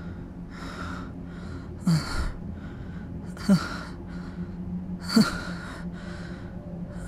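A person breathing hard in repeated heavy breaths, with three louder gasps whose voiced part drops in pitch, over a steady low hum.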